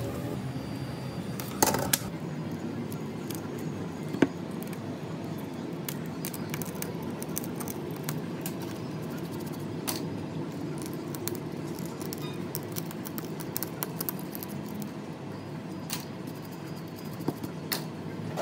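A few sharp taps and clicks of a phone and small parts being handled on a rubber repair mat, over a steady low hum. The loudest taps come about two and four seconds in.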